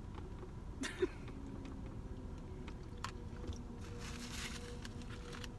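Soft chewing and mouth sounds of someone eating spaghetti with meat sauce, with a few small clicks, the sharpest about a second in.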